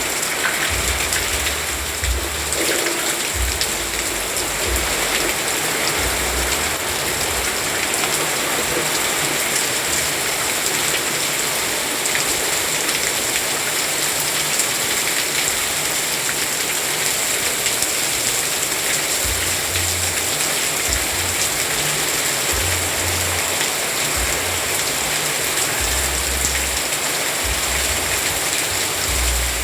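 Steady rain falling, an even hiss of many drops, with short low rumbles every few seconds.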